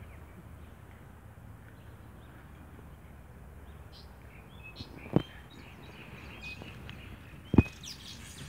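Outdoor ambience with birds chirping briefly in the background from about halfway through, over a steady low rumble. Two sharp knocks, the loudest sounds, come about five seconds in and again about two and a half seconds later.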